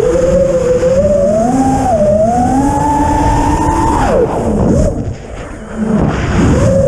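FPV quadcopter's brushless motors spinning 5-inch props on a 7-inch frame, whining in a pitch that rises and falls with the throttle. About four seconds in the whine drops steeply as the throttle is cut and the sound quietens. About a second later it surges back up with the throttle.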